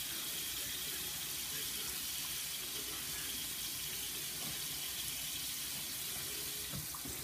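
Bathroom sink faucet running steadily, its stream falling onto hair and into the basin as it is rinsed.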